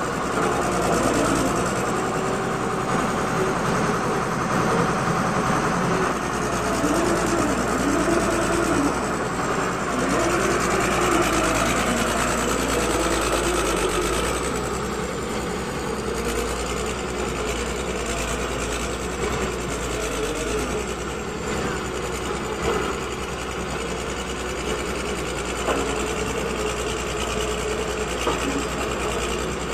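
Diesel engines of a tracked excavator and a vibratory road roller running steadily as the excavator pushes the roller up a rough gravel road, with a whine that rises and falls in pitch, strongest in the first half.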